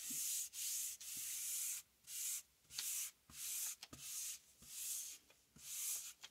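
A small hand tool rubbed back and forth over the back of a sheet of paper laid on a gelli plate: dry, hissing strokes, about ten in a steady rhythm. The paper is being burnished onto the painted plate to pull a print.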